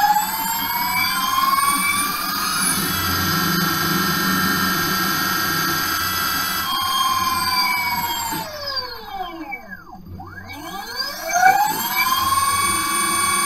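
Brushless hub motor on an electric ATV, driven by a Fardriver controller, spinning freely with the wheel lifted off the ground. Its whine rises in pitch and holds steady, falls away as the motor slows almost to a stop about ten seconds in, then rises again to a steady whine near the end. This is a test run to confirm the motor turns forwards after its direction setting was changed.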